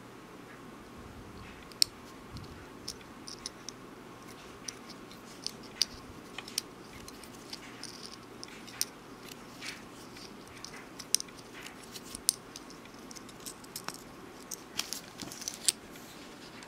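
Split-ring pliers and a small steel split ring clicking and ticking against a metal bottle cap as the ring is worked on, a scattering of short, sharp metallic clicks over a faint steady hiss, with a quick cluster of clicks near the end.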